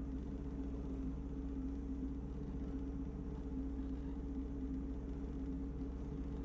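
Personal watercraft (jet ski) engine running steadily at low speed, a constant low hum with one steady tone.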